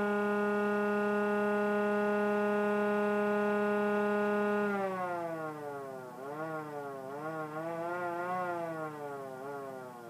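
Small motor-driven model siren, run off 3 volts with its shroud housing fitted, holding a steady tone at full speed. About five seconds in it winds down, its pitch rising and falling several times as it slows, then fading.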